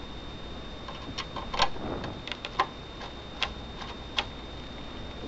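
Irregular small clicks and taps of a mini Phillips screwdriver and fingers working the PS3's blue hard-drive screw back in, several sharp ticks a second or so apart.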